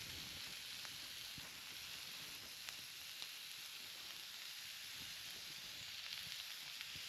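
Chuck steak frying in its own fat on a Trangia stove's grill attachment: a steady sizzle with scattered small spits and pops.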